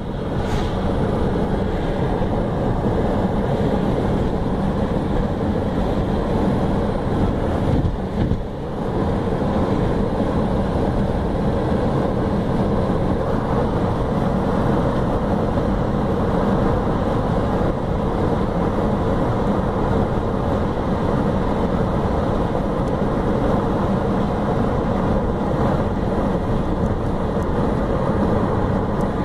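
Steady road noise of a car driving along a highway, heard from inside the cabin: engine and tyre noise running continuously, with a brief dip about eight seconds in.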